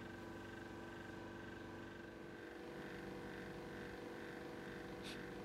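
Steady machine hum made of many fixed tones, joined about halfway through by a soft pulsing about two to three times a second.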